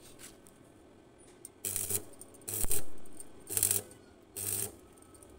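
Electric arc welder tack-welding a steel pipe: four short bursts of crackling hiss with a low buzz underneath, about a second apart, the second one the loudest with a sharp snap.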